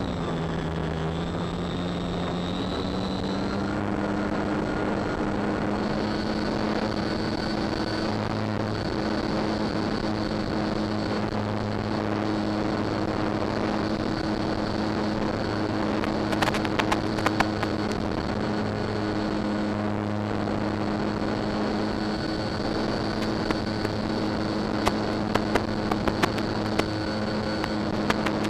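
Electric motor and propeller of a Durafly Tundra RC plane running at a steady throttle, heard from a camera mounted on the airframe, its hum stepping up a little in pitch a few seconds in. Clusters of sharp clicks come in around the middle and again near the end.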